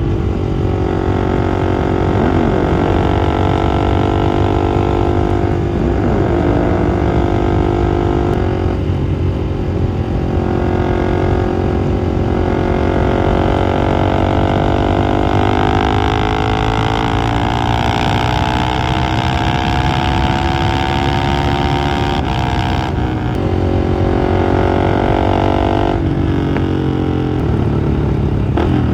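Husqvarna 701 single-cylinder motorcycle engine under way, heard from on board over heavy wind noise. The engine note holds steady, drops at a gear change about a third of the way in, then climbs slowly as the bike accelerates, with two more shifts near the end.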